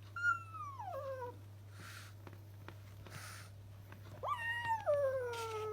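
A cat meowing twice, two long drawn-out calls that each slide down in pitch: the first near the start, the second, longer one beginning about four seconds in.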